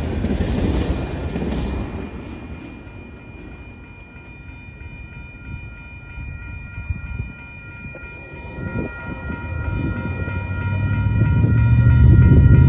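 Heavy road traffic: a large vehicle rumbles past and fades over the first two seconds, and another builds to a loud low rumble near the end. Through the middle a faint steady chord of several high tones rings on, then stops near the end.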